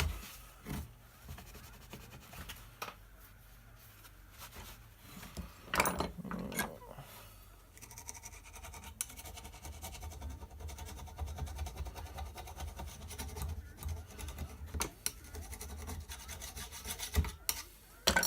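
Chainsaw bar being rubbed clean by hand with gasoline: irregular rubbing and scraping strokes along the steel bar, a few louder ones about six seconds in and near the end.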